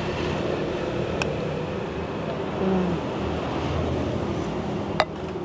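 Steady traffic noise from a busy city road, with a single sharp click about five seconds in.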